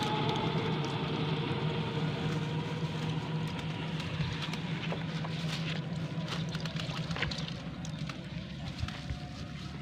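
A steady low engine hum that slowly fades away, with a few faint clicks over it.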